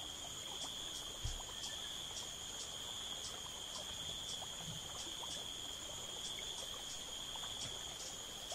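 Insects chirring in a steady high drone with a regular pulse running through it. There is a soft low thump about a second in.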